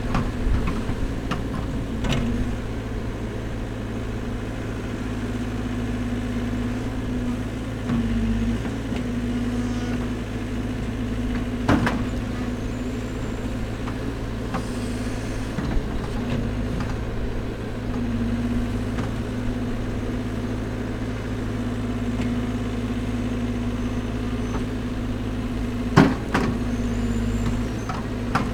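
Caterpillar backhoe loader's diesel engine running steadily while the backhoe arm works, with a constant drone. A few sharp knocks come through, the loudest near the end.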